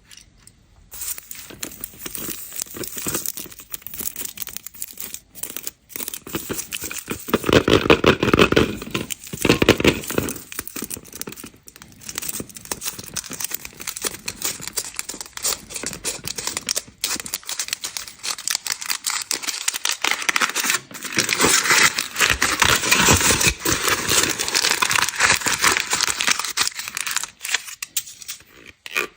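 Candy wrappers being torn open and crinkled by hand in close, continuous handling, with louder bursts of tearing about a quarter of the way in and again past the middle.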